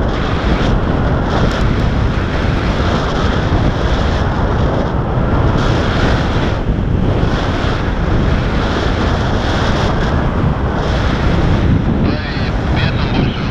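Loud, gusty rush of airflow buffeting the camera's microphone as a paraglider climbs on a winch tow line.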